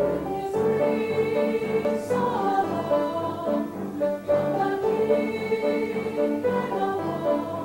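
A chorus singing held notes over instrumental accompaniment, in a live stage musical.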